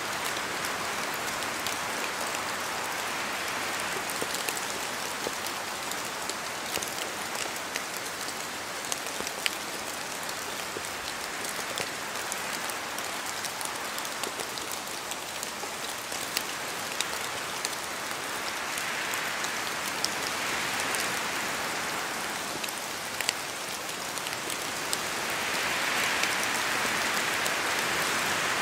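Rain falling in a spruce forest: a steady hiss of rain with scattered sharp drops dripping from the trees, and wind through the spruces swelling twice in the second half, louder near the end.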